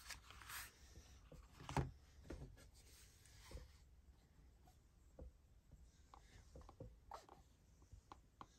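Quiet handling of paper and cardboard packaging: a brief paper rustle at the start, a single knock a little under two seconds in, then faint taps and clicks as a hard sunglasses case is picked up and held.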